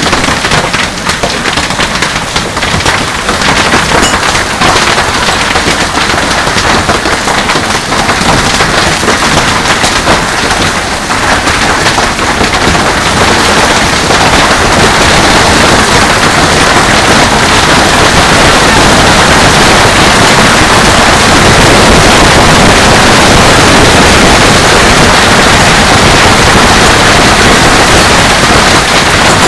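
Heavy rain, a dense clatter of drops striking a surface, loud throughout. It grows heavier and more even about halfway through, becoming a steady downpour.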